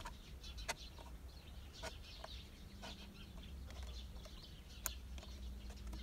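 Faint, scattered clicks and crackles of a thin plastic bottle being handled as a wooden kebab skewer is pushed through small holes in its side.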